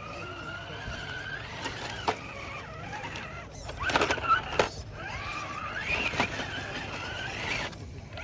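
Scale RC rock crawler's electric motor and gearbox whining, the pitch rising and falling with the throttle. A few sharp knocks come through about two and four seconds in.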